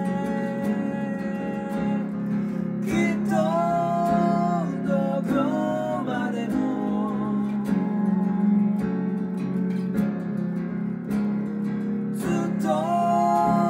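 Acoustic guitar playing a slow accompaniment while a man sings a Japanese ballad. The voice comes in about three seconds in with long held notes, drops out, and returns near the end.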